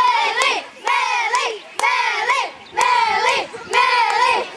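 High-pitched voices of spectators, mostly children, shouting in short repeated bursts about once a second, cheering on a young runner, with a few sharp clicks among the shouts.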